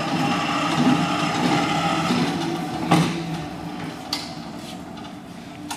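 Hyster W45XT electric walkie pallet truck driving along under power, its drive motor running with a steady whine and hum. Two sharp clicks come about three and four seconds in, and the sound eases off toward the end.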